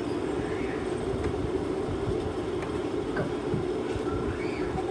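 Steady low rumbling background noise with a few faint light clicks.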